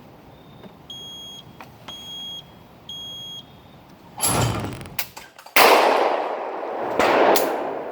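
Three short electronic beeps a second apart, then a thump, then two loud shots about a second and a half apart from a Franchi Instinct SL Sport 12-gauge over-under shotgun, the first shot the louder. The beeps are a delay-mode countdown for the clay target release.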